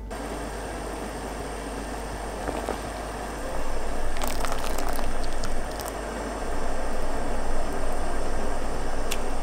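Water at a rolling boil in a pot with a seafood stock pack: a steady bubbling rush that gets louder about three and a half seconds in, with a couple of faint clicks.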